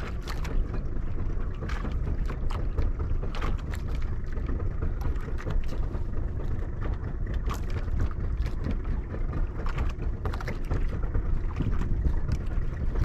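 Wind buffeting the microphone on a small boat at sea, a steady low rumble with scattered short clicks and knocks.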